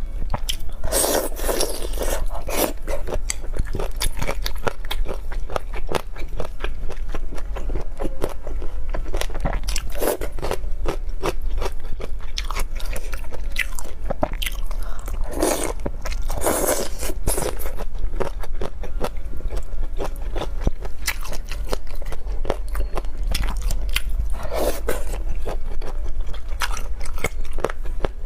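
Close-up eating of spicy chicken feet: continuous biting, chewing and crunching of skin and cartilage, with a few louder wet bites scattered through, over a low steady hum.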